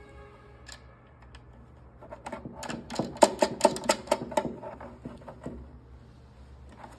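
A quick run of a dozen or more sharp plastic clicks and rattles, starting about two seconds in and dying away a few seconds later, as a hand works at a clip inside a recess in a diode laser machine's hollow plastic housing.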